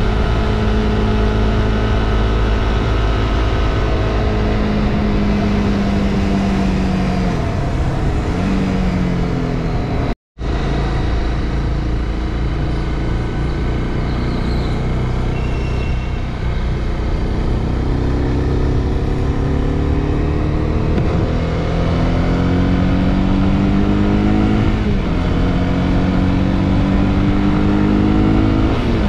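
Honda CB300R's single-cylinder engine running under way. It slows, with its pitch falling a few seconds in, then accelerates with a rising note, eases briefly for a gear change about 25 seconds in, and climbs again. There is a split-second gap in the sound about ten seconds in.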